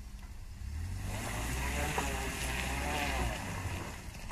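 Small Suzuki pickup's engine pulling under load through deep mud. It gets louder about a second in with a revving rise and fall in pitch, and eases off near the end.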